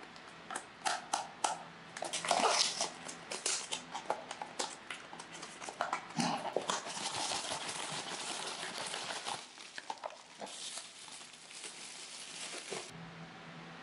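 Close-up unboxing handling sounds: fingernails clicking on a small cardboard box as it is opened, then a foil blind-box bag being torn and crinkled, and near the end clear plastic wrap rustling as a figure is unwrapped.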